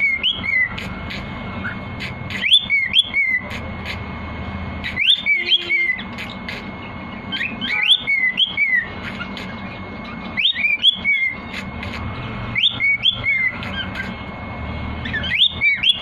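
Cockatiel whistling the same short learned tune over and over, about every two and a half seconds. Each time a quick rising whistle is followed by a few warbling notes that fall away.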